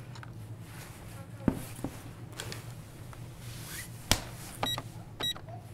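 Checkout-counter handling noises: a few knocks and clicks as a red plastic shopping basket and clothing are moved, the sharpest knock about four seconds in. Near the end come two short electronic checkout beeps, over a steady low electrical hum.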